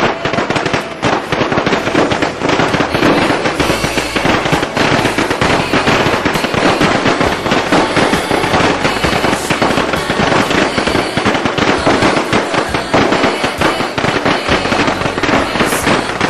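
A long string of firecrackers going off in a dense, continuous rattle of rapid pops.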